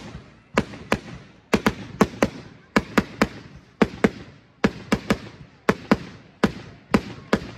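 A multi-shot firework cake firing a rapid run of sharp bangs, about three a second and often in quick pairs or threes, each with a short echo.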